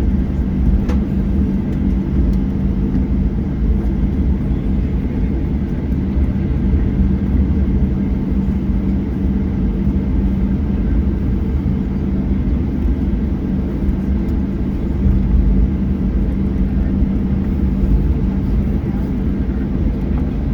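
Steady cabin noise inside a Boeing 737-800: a constant low rumble of the engines and airflow with a steady hum, no sudden changes.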